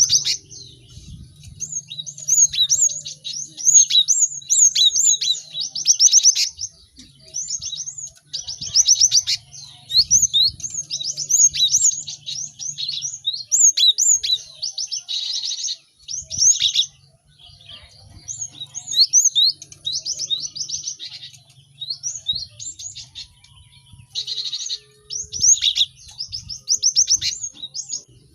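Several cinereous tits calling busily: bursts of rapid, sharp, high chirps and quick repeated notes, each burst lasting a second or two, with short pauses between.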